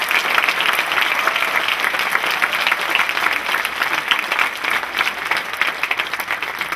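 Audience applauding, many hands clapping steadily, easing slightly near the end.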